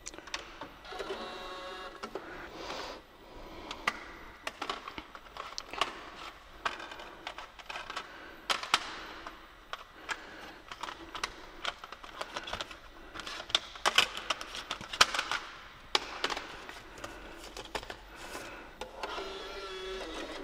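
Irregular clicks, knocks and light clatter, coming in uneven clusters with short gaps between them.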